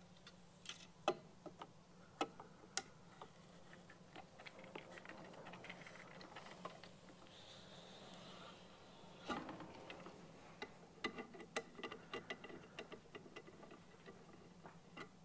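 Cleaning rod clicking and scraping against a .22 rifle's action and bore as dry steel wool on a brass jag is worked through the barrel to scrub out lead fouling. Faint, irregular clicks and scrapes, with a run of quick clicks about two-thirds of the way through.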